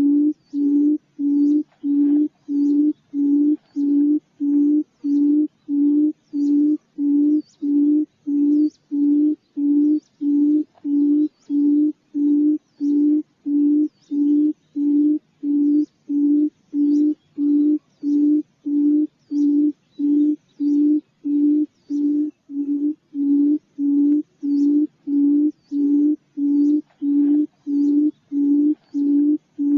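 Quail (puyuh) calling, used as a trapping lure: a low hooting note repeated evenly, about one and a half to two times a second, without a break.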